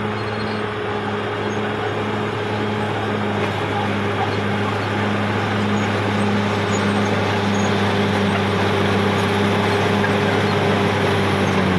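Caterpillar D6R XL bulldozer's diesel engine running steadily under load with an even drone, growing slightly louder toward the end.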